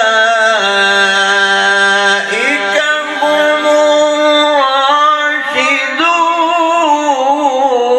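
A male Quran reciter's voice drawing out long melodic notes of tajwid recitation. Each note is held at length, with a step up in pitch partway through and a brief break for breath.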